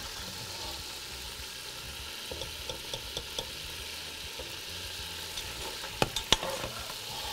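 Beef strips sizzling in a hot pot with a steady hiss while they are scooped out with a metal slotted spoon. The spoon scrapes lightly and then clinks sharply a few times about six seconds in.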